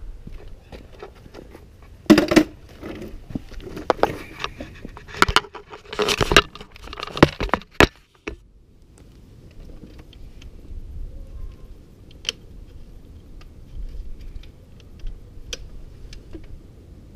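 Small metal screws and hardware clinking and rattling as they are handled and sorted: a busy clatter of sharp clicks for about six seconds, then only an occasional light tick.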